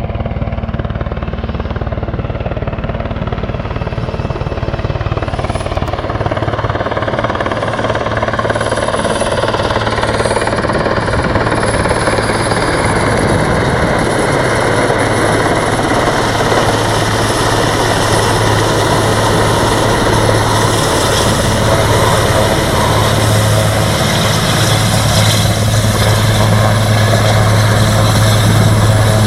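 Helicopter in flight: the rotor and turbine make a steady hum with a dense whirring noise over it, growing slowly louder.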